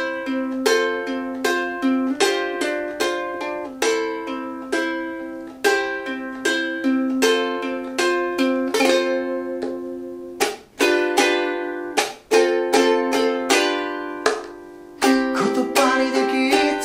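Ukulele picking an arpeggiated intro through C, F/G7 and Am, with the first string held at the third fret so a high C rings on over every chord change. The notes come one after another in a steady, unhurried rhythm.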